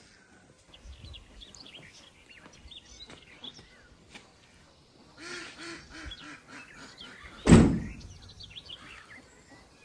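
Outdoor village ambience with small birds chirping throughout and a duck quacking several times in quick succession about five seconds in. A single loud thump about seven and a half seconds in is the loudest sound.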